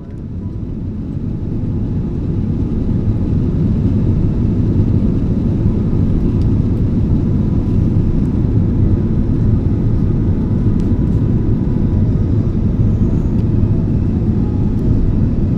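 Steady low rumble of a jet airliner in flight on its approach, fading in over the first few seconds.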